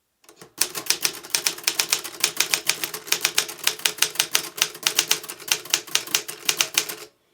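Erika Daro plastic-framed manual portable typewriter being typed on: a fast, even run of key strikes, several a second, starting about half a second in and stopping just before the end.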